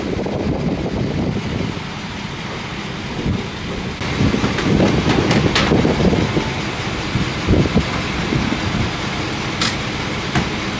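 Pickup truck's engine idling, a steady low rumble that gets louder about four seconds in, with a few sharp clicks near the end.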